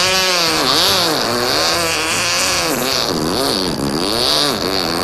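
A man imitating a chainsaw with his voice: a loud buzzing drone whose pitch swoops up and down over and over, like the engine being revved.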